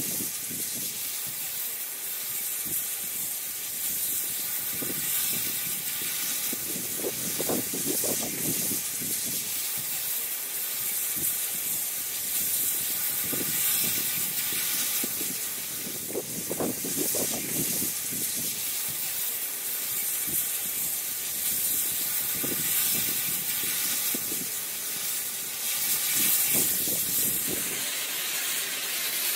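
Steam locomotive 5917, a New South Wales D59 class 2-8-2, hissing steam steadily while standing, with lower surges that come and go every few seconds.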